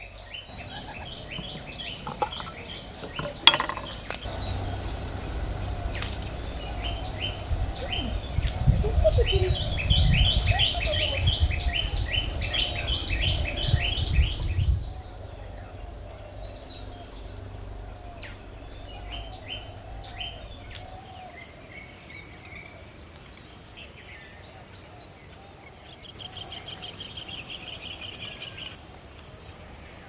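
Tropical garden ambience: birds calling with quick repeated chirps over a steady high insect drone, with a low rumble under it in the first half. About halfway the birds drop out and the insects shrill on alone, louder in the last third, with a short fast rattling trill near the end.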